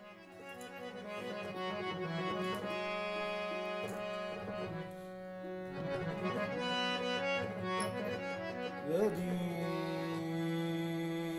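Harmonium playing a slow melodic prelude over a held drone note, fading in at the start, with a few sharp tabla strokes here and there.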